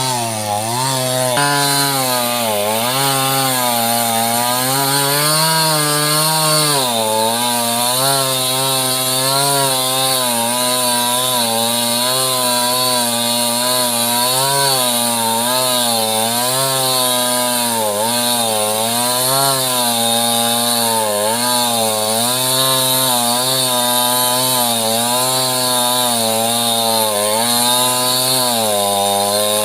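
Mini chainsaw cutting sengon wood, running continuously with its engine pitch dipping and recovering every second or two as the chain bites into the wood.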